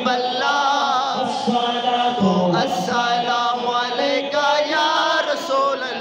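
Men's voices chanting an Islamic devotional refrain together, many singing in unison in a rising and falling melody.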